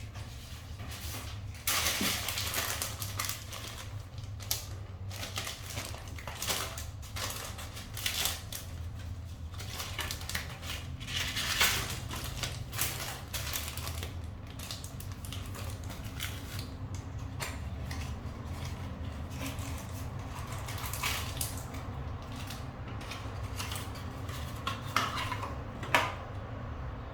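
Metal tools or parts clinking, knocking and scraping in an irregular run of sharp clicks, over a steady low hum.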